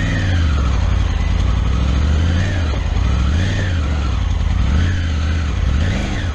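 Triumph Tiger 900's three-cylinder engine pulling at low speed on a rough dirt track, its revs rising and falling about five times as the throttle is worked, then dropping away at the very end.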